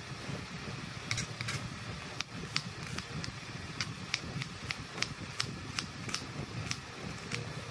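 Kitchen knife slicing a red onion on a wooden cutting board, the blade tapping the board roughly two to three times a second from about a second in, over a steady low background hum.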